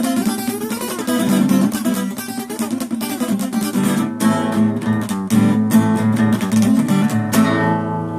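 Guitar picked with a round-tipped pick in a quick run of notes, the wide tip meant to rub across the wound strings for a buzzing, distorted edge. A final chord is struck about seven seconds in and left ringing.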